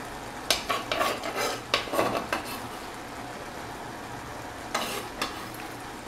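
Kitchen knife scraping grated raw beetroot across a wooden cutting board: a quick run of short scrapes in the first couple of seconds, then two more shortly before the end.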